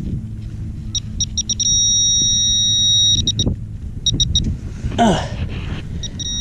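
Handheld metal-detector pinpointer beeping in quick pulses and then sounding a steady tone for about a second and a half as it closes on a coin in the dug hole; it pulses again and goes steady once more near the end. A brief scraping rustle sounds about five seconds in, over a low steady rumble.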